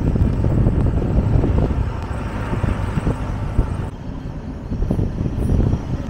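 Riding a motor scooter along a road: wind buffeting the microphone over the running engine and road noise. The sound gets a little quieter and duller about four seconds in.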